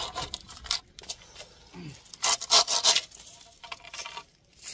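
Hand pruning saw cutting through a bamboo pole: a run of back-and-forth saw strokes, the loudest a little over two seconds in.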